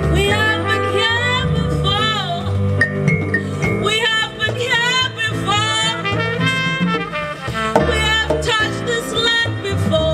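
Live jazz-tinged band music: a woman sings into a microphone in long swooping lines that bend up and down in pitch, over upright bass, with trumpet in the mix.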